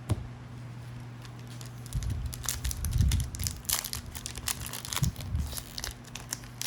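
Foil booster-pack wrapper being torn open and crinkled in the hands: a click at the start, then a run of sharp crackles from about two seconds in.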